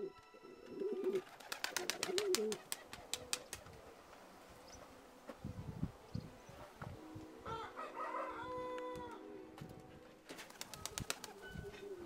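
Domestic pigeons cooing several times, with runs of rapid clicks between the coos.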